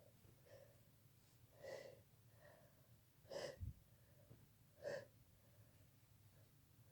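A person breathing in faintly three times, short breathy intakes spaced about a second and a half apart, in a lull during a sneezing fit.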